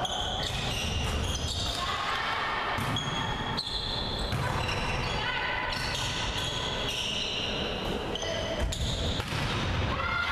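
Volleyball rally in a sports hall: the ball is struck again and again with sharp slaps, shoes squeak on the court floor in short high chirps, and players' voices call out, all echoing in the hall.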